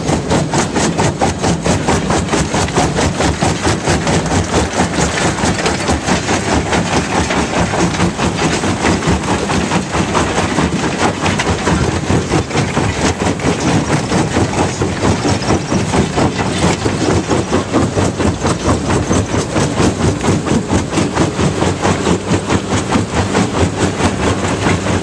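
Fintec 1107 jaw crusher running under load, crushing limestone: a loud, steady machine din with a rapid, even pulsing beat throughout.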